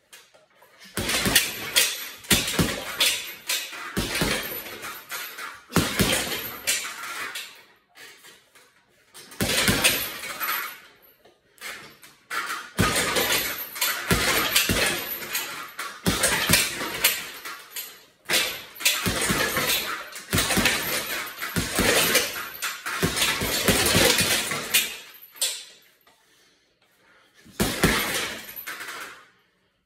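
Boxing gloves striking an Everlast heavy punching bag in flurries of fast punches, with short pauses between combinations.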